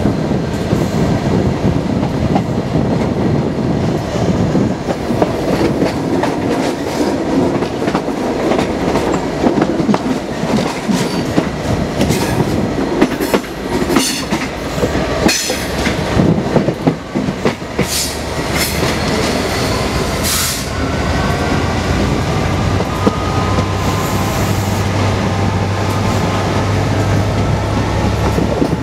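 Class 67 diesel locomotive (EMD V12 two-stroke engine) running at speed alongside the coach, with a steady engine drone, rushing air and wheel noise on the rails. About halfway through, a run of sharp clacks as the wheels cross pointwork, then a faint wheel squeal while the engine note holds steady.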